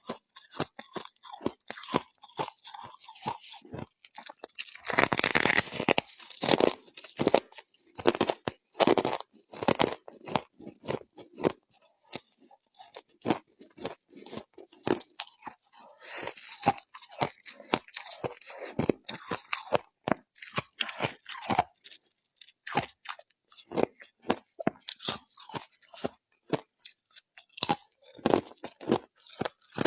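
Close-up crunching and chewing of ice frost in the mouth: a steady run of sharp, irregular crunches, with a denser, louder stretch of crunching about five seconds in.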